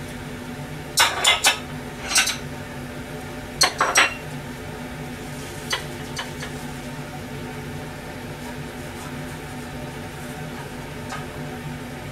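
Kitchen dishes and utensils clattering and clinking: a quick run of knocks about a second in, another just after two seconds, a pair near four seconds and a lighter one near six, over a steady low hum.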